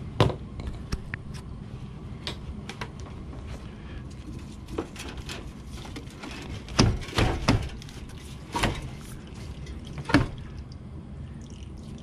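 Scattered knocks and clunks of parts and tools being handled while an evaporator coil is taken out, over a steady low background noise. The loudest come in a quick group of three about seven seconds in, with single sharp ones near the start and about ten seconds in.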